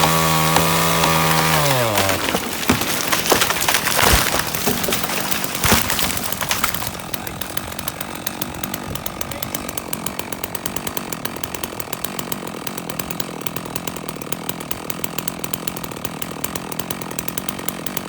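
Stihl MS660 two-stroke chainsaw running at high revs, then dropping off about two seconds in. Loud cracks and thuds follow over the next few seconds as the rotten tree breaks and comes down. The saw then idles with a fast, even putter.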